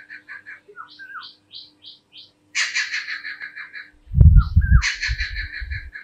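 Stork-billed kingfisher calling: bursts of fast repeated notes, with a few short separate notes between them. About four seconds in, a low thumping rumble is the loudest sound.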